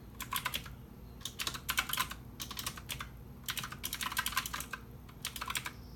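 Computer keyboard being typed on: quick runs of keystrokes with short pauses between them.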